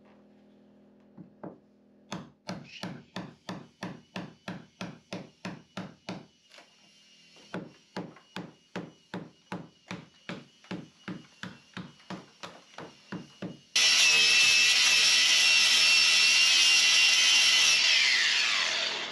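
Steady hammer blows on a chisel, about two and a half a second with a short pause, chopping rotten wood out of a wooden hull frame. Near the end a power grinder starts up, runs loud with a high whine, grinding back protruding nails, then winds down.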